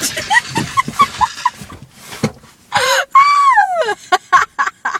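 Vocal sound effects for a pretend shootout: a quick run of short high chirps, then about three seconds in a harsh noisy burst followed by a long falling wail, and a few sharp clicks near the end.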